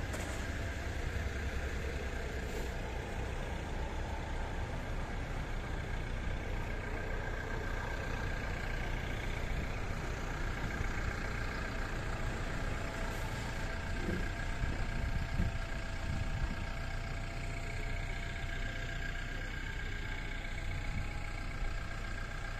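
Well-drilling rig's engine running steadily, a constant mechanical drone with a few held tones over it.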